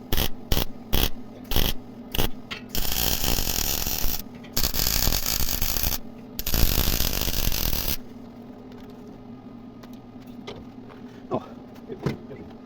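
Welding: a run of quick rhythmic strokes, about three a second, then three arc-welding bursts of a second and a half or so each, separated by short pauses.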